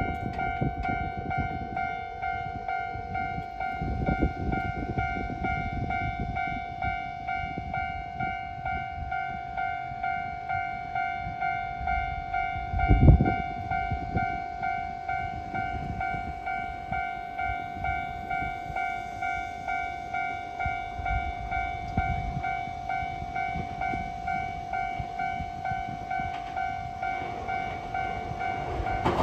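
Level-crossing warning bell ringing: a steady electronic ding repeating a little faster than once a second as a 620-series electric train approaches, its running noise rising near the end. A loud low thump about thirteen seconds in.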